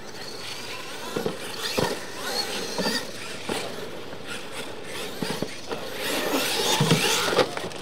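Radio-controlled monster trucks racing on a dirt track: motor whine rising and falling with the throttle, tyres scrabbling on the dirt, and several knocks as the trucks bounce over ramps, busiest near the end.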